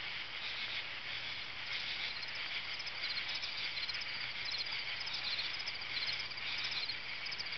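Steady chorus of crickets chirping: a continuous high trill with clusters of sharper chirps repeating about twice a second.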